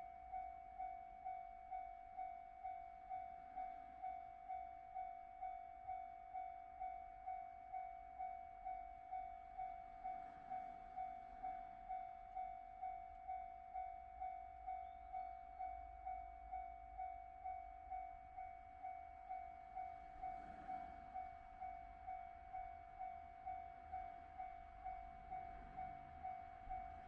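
Japanese railway level-crossing alarm ringing its repeated single-pitched electronic "kan-kan" tone, just under two rings a second, with a faint low rumble underneath.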